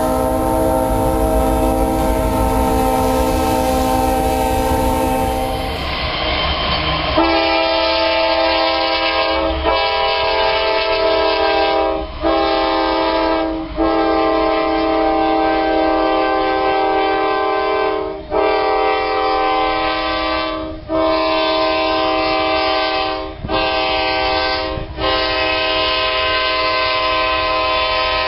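Diesel locomotive multi-chime air horns. The first horn holds one long chord over a low rumble. About seven seconds in, a second recording takes over: a horn blowing about nine long blasts with short breaks between them.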